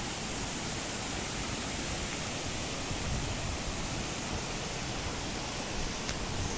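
Steady rushing of a shallow stream running over rocks.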